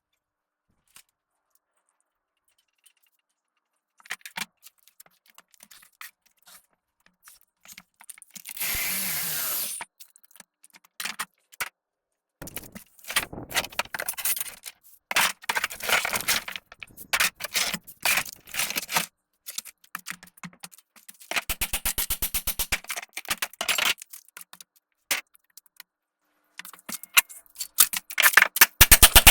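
Tools tearing out rotten plywood and fiberglass: irregular scrapes, knocks and clatter in bursts, with a quick run of regular taps about two-thirds of the way through.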